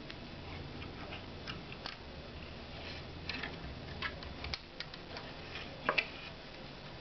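Scattered light clicks and ticks of fingers handling a thin flexible Rogowski coil as it is threaded through the legs of a TO-220 device on a circuit board, the coil and component leads knocking together; the loudest are two quick clicks about six seconds in.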